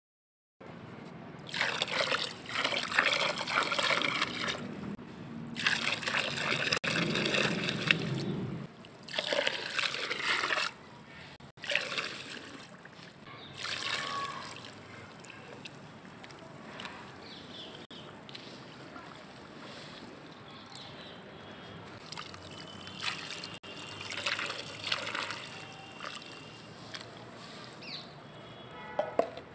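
Fine white sand poured in streams into a plastic tub of water. The pour is loudest in the first ten seconds or so, then goes on more softly.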